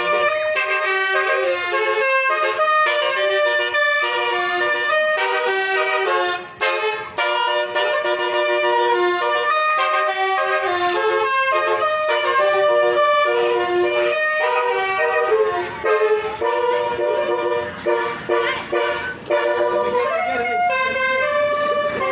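Telolet bus horn with nine trumpets playing a quick tune, one note after another, with a few short breaks in the melody.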